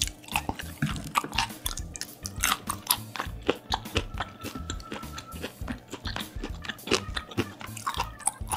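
A person biting and chewing raw fish sashimi: quick, irregular wet mouth clicks and crunches.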